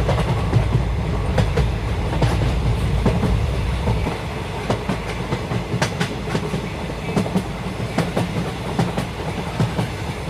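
Singapore MRT North-South Line train running: a steady low rumble with scattered clicks and rattles, the rumble easing slightly about four seconds in.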